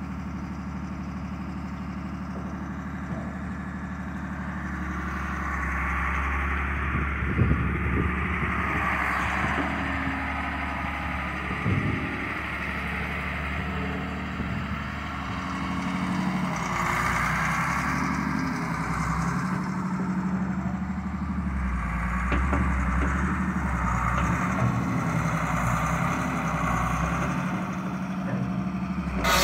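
Liebherr 912 crawler excavator's diesel engine running steadily while the machine works its hydraulics, swinging the upper structure and moving the boom and bucket. Its note rises under load at times, with a few metallic clanks.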